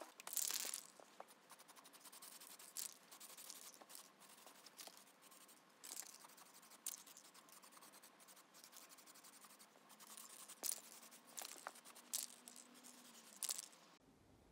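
Faint rustling and scraping, with several short bursts of hiss.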